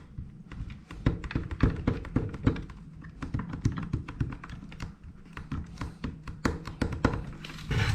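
Rapid, irregular clicking and tapping of small hard plastic parts being handled: a GoPro helmet mount being worked into place on a motorcycle helmet.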